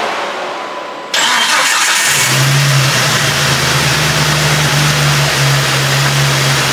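Turbocharged Jeep Wrangler TJ 4.0 straight-six catching about two seconds in and then running steadily with a loud rushing noise. It is a break-in run on a freshly installed camshaft.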